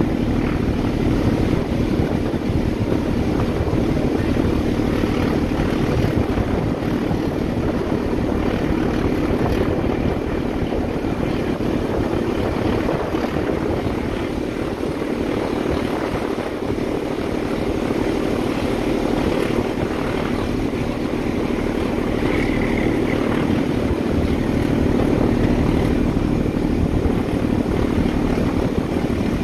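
Class 14 diesel-hydraulic locomotive's Paxman Ventura engine running steadily under power, a loud even drone heard through an open carriage window of the train it is hauling, with the rush of the moving train underneath.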